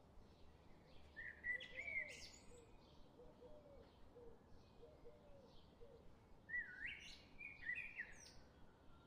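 Birds calling in open air: two short bursts of warbling bird song, one about a second in and another about six and a half seconds in, with faint repeated chirps and lower calls in between.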